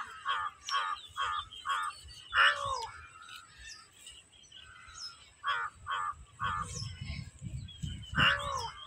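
Crows cawing repeatedly: a quick run of about five caws near the start, a few longer arching caws, and another short run about halfway through.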